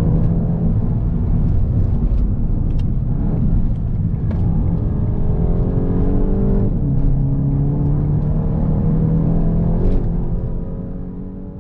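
A 2021 VW Golf GTI's turbocharged 2.0 TSI four-cylinder engine pulls under acceleration, the revs rising steadily and dropping back at quick DSG upshifts, one about seven seconds in and another near ten seconds. The sound then fades away near the end.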